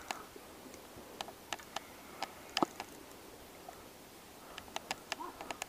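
Irregular light clicks and ticks. There is a small cluster about a second in, one sharper knock about two and a half seconds in, and a busier run of clicks near the end.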